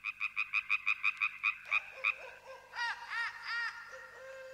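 Animal calls: a quick run of about eleven short pitched pulses that slow down over the first two seconds, then three short arching calls.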